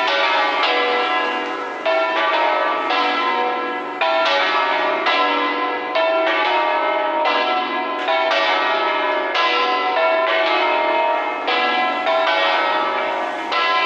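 Church tower bells ringing a peal: several bells struck in turn, roughly one strike a second, each tone ringing on under the next.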